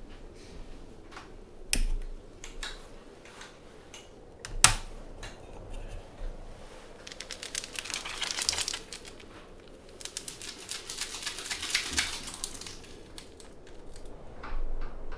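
Stiff, crinkly nylon of a sleeping mat and its stuff sack being handled and unrolled. It comes as two long stretches of rapid crackling, with two sharp knocks about two and five seconds in.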